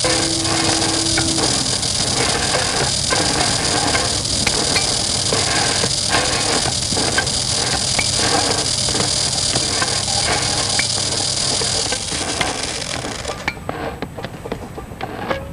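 An electric vibrator shaking a plastic racket buried in a heap of sawdust: a steady low buzz with a dense, uneven rattle and many small clicks, under a hiss that drops away about 13 seconds in.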